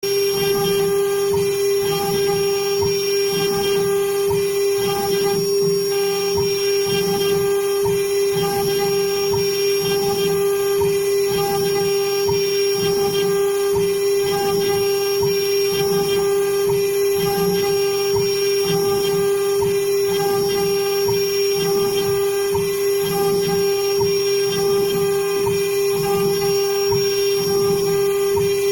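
A high-speed power tool running steadily with a constant high whine, shaping a wooden keycap, with a faint regular pulsing in the cut.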